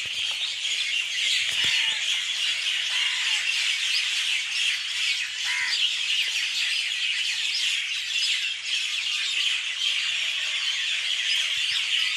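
Many birds chirping and chattering together in a dense, continuous chorus of quick high calls, with a few lower call notes standing out now and then.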